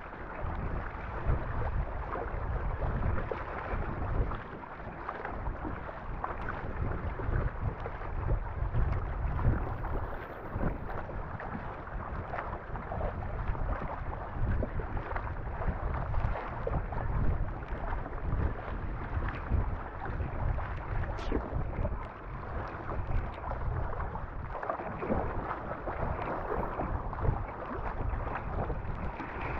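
Water splashing and rushing along a racing surfski's hull with the splash of paddle strokes, under constant wind buffeting on the microphone.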